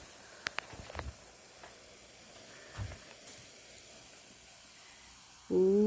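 Vinegar pouring onto blue-dyed baking soda in a clear plastic cup, the mixture fizzing with a steady, faint crackling hiss and a few small clicks. Near the end a voice lets out a rising "ooh".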